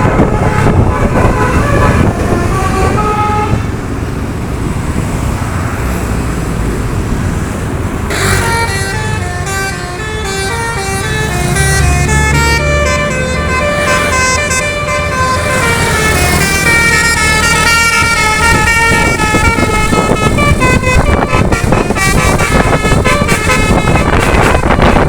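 Bus 'telolet basuri' multi-tone horn playing a tune of short stepped notes: a brief phrase, a gap of a few seconds, then a long run of the melody, over steady vehicle and road noise.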